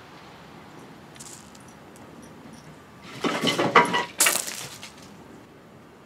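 Sunflower seeds and hulls clattering and rattling in a rapid jumble for about two seconds, starting about three seconds in, as a gray squirrel scrambles off the seed-covered board.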